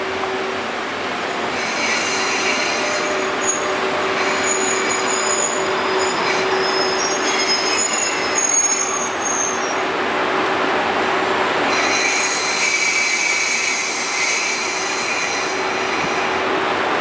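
JNR Class EF81 electric locomotive and its 24-series passenger coaches rolling slowly into a platform and braking to a stop. High brake and wheel squeals come in two stretches over a steady hum.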